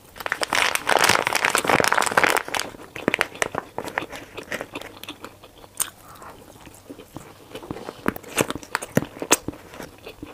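A plastic food bag rustles loudly for the first few seconds, then close-up chewing of chewy, spice-coated wheat gluten rings follows, with many short wet mouth clicks and smacks.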